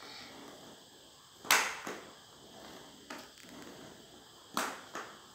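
Four-wheel ab roller rolling back and forth across a laminate floor, with two sharp clacks, one about a second and a half in and one near the end, and a few lighter knocks.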